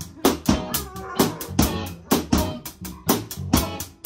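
A drum kit played with sticks, snare, bass drum and cymbals keeping a steady rock beat of about four strokes a second, with a guitar through an amplifier playing sustained low notes underneath.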